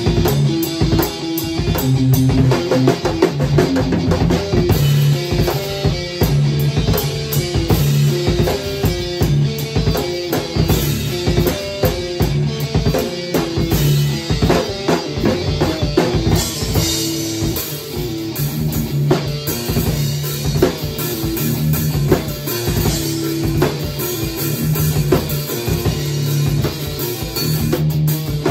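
Drum kit and electric guitar jamming together: steady drumming with kick drum and cymbals under a repeating riff on a Les Paul-style electric guitar played through an amp.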